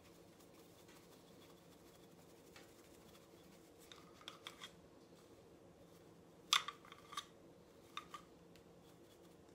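Kalita mill-cleaning brush scrubbing stuck coffee grounds from inside a Comandante hand grinder's body: faint brushing with a few light clicks and taps of the brush against the body, the sharpest about six and a half seconds in.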